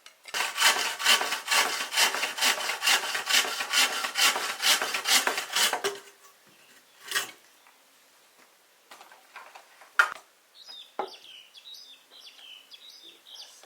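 Wood being cut or worked by hand with a blade in quick back-and-forth strokes, about three a second, stopping after about six seconds. A few single knocks of wood follow, and faint bird chirps come near the end.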